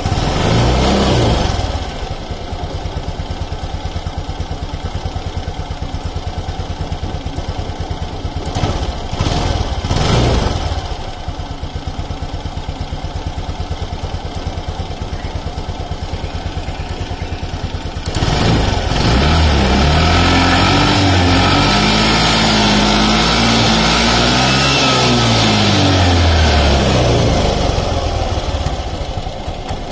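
Suzuki Access 125 scooter's single-cylinder four-stroke engine idling at the exhaust. It gives short throttle blips about a second in and around ten seconds, then is held at higher revs, rising and falling in pitch, from about eighteen seconds until it settles back to idle near the end. It is running on oil freshly dosed with Liqui Moly MoS2 (molybdenum disulfide) additive.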